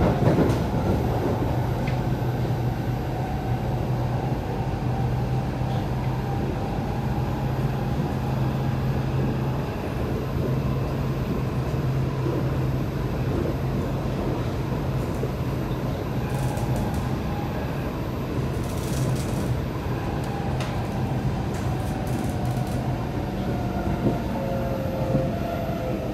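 Kawasaki C751B electric train running on the track, heard from inside the car: a steady rumble of wheels on rail with a low hum and a motor whine that falls in pitch near the end.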